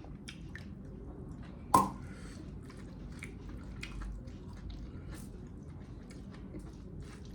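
A person chewing meat close to the microphone: wet smacking and small clicking mouth sounds throughout, with one louder smack a little under two seconds in.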